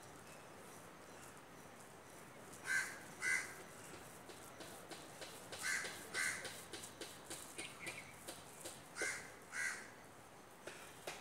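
A bird cawing: three pairs of short, harsh calls, about three seconds apart.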